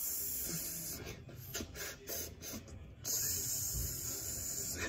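Hissing that stops about a second in, then a second spell of hissing from about three seconds in that breaks off near the end.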